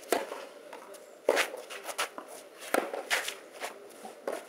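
Tennis ball struck by rackets in a rally on a clay court: a crack of the serve just after the start, then more sharp hits and bounces at uneven intervals, with shoes scuffing on the clay.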